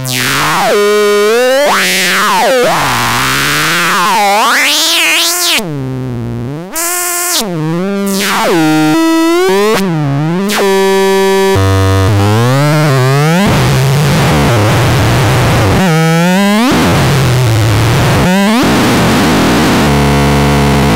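Electronic synthesizer making pitched tones that swoop sharply up and down, with bursts of harsh noise. In the second half it holds more steady notes.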